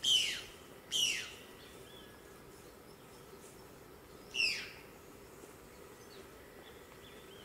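A bird giving three short, loud calls, each a quick downward sweep in pitch: two a second apart, then a third about three seconds later. Faint chirps of other birds sound in the background.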